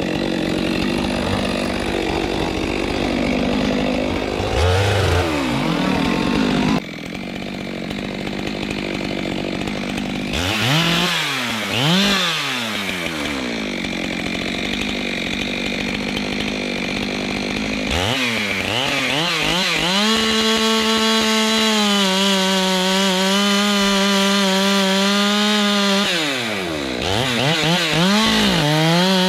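Two-stroke chainsaw working in kapok wood. The engine revs up and down in short blips, then climbs and holds at full throttle for several seconds, dips near the end and picks up again.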